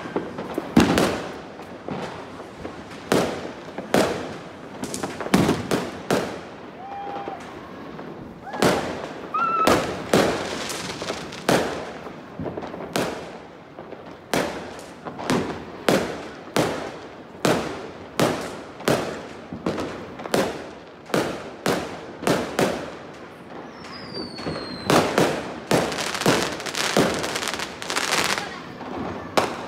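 Fireworks going off in quick succession: sharp bangs of bursting shells about once a second, some in rapid clusters. Near the end comes a falling whistle of a whistling firework.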